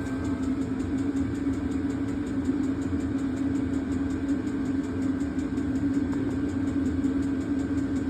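8 kW Vevor diesel air heater running with a steady hum from its blower fan and burner.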